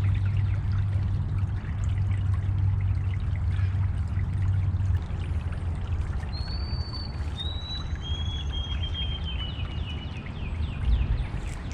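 A steady rushing noise with a low hum that eases about five seconds in, with wild birds whistling over it: a couple of short, high, clear notes about six seconds in, then a longer run of slightly falling notes.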